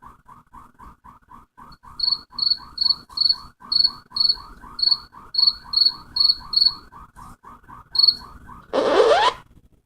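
Night-ambience sound effect of frogs and crickets, used as the awkward-silence gag: a frog croaking quickly, about four or five croaks a second, with higher cricket chirps joining about two seconds in. Near the end a short rising swoosh cuts across it.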